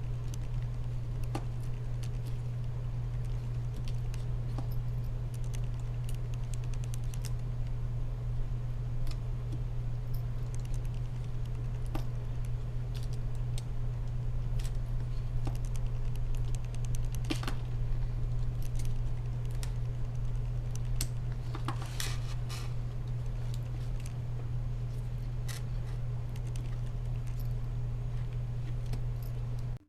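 Scattered small clicks and taps of laptop parts and tools being handled, with a quick run of clicks about two-thirds through. All of it sits over a steady low electrical hum, which is the loudest sound.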